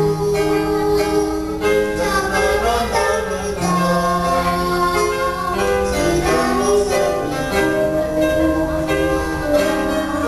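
A young girl singing a solo through a microphone, with electronic keyboard accompaniment under her, the notes held long and moving stepwise.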